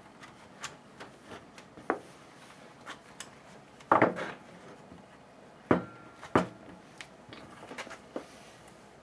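Scattered light clicks and knocks of hand tools and hedge trimmer parts being handled while a throttle cable is worked into place, with a few louder knocks about four seconds in and twice around six seconds.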